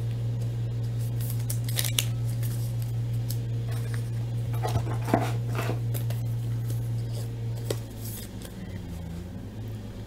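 Trading cards and plastic card sleeves being handled, with light rustling and a few sharp clicks as a card is slid into a sleeve and a rigid toploader. A steady low hum runs underneath.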